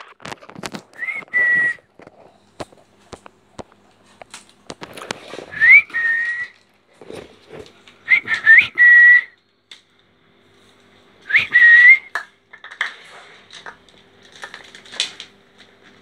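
Four short whistles, each a quick upward slide into a held note, spaced a few seconds apart. In between come light clicks and taps from the plastic colander and bowl and the birds' claws on the tiled floor.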